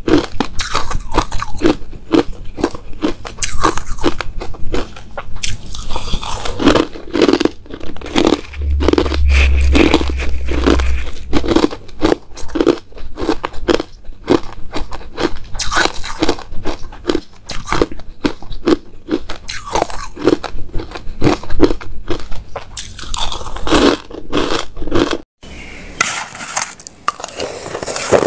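Crushed ice being bitten and chewed close to the microphone: a fast, unbroken run of sharp crunches. Near the end it stops for an instant, and the crunching goes on thinner after that.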